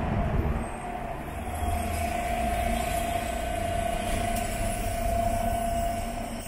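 Road traffic: a low engine rumble with a steady whining tone that comes in about a second in and holds.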